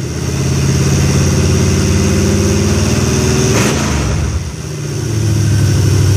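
Chevrolet 454 big-block V8 with headers running at raised revs, then dropping about four seconds in to a lower, steady fast idle. The engine still idles a little high, which the owner puts down to the choke not being fully open.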